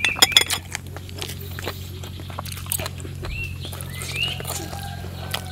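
Close-up wet chewing and lip-smacking of a mouthful of raw beef, with a cluster of sharp clinks of a metal spoon against a ceramic bowl right at the start.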